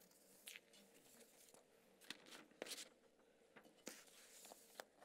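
Near silence: a quiet room with a few faint, short rustles and clicks of paper sheets being handled at a pulpit.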